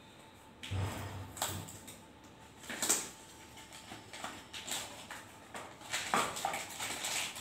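Small cardboard retail box being opened and its clear plastic tray pulled out: irregular rustling, scraping and crinkling of cardboard and plastic packaging, in short bursts about a second in, near three seconds and near six seconds.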